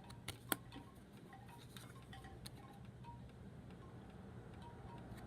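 Tarot cards being handled, giving two sharp clicks within the first second, over a low steady hum. Faint, short, chime-like pings recur throughout.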